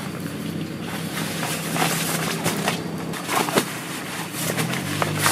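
Heavy rain pattering on a nylon tarp overhead while stiff fabric camping gear is unfolded and handled, crinkling and rustling with small knocks. Under it runs a steady low hum that steps up in pitch near the end.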